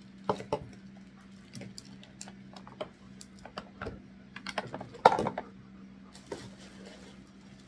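Irregular clicks and knocks of hard plastic parts of a pet grooming vacuum kit being handled and set down, the loudest knock about five seconds in.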